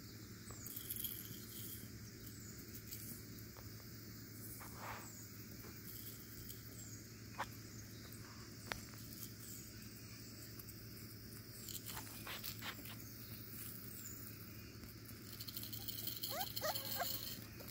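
Corgi puppies, six weeks old, playing on a mat, with scattered soft clicks and rustles, then a puppy whining in a few short cries that rise and fall near the end.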